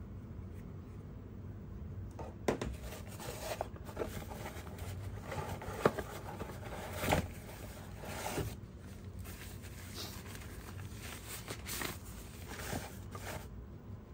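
Packaging being handled as a camera body is lifted out of its box: irregular rustling and crinkling of the wrapping, and scrapes and light knocks against cardboard. It starts about two seconds in, with the sharpest crinkles in the middle.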